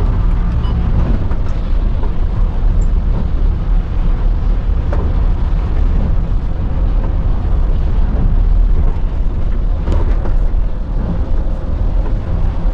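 Thaco coach cruising on a wet road: a steady low rumble of engine and tyres heard from the driver's seat, with a couple of faint clicks.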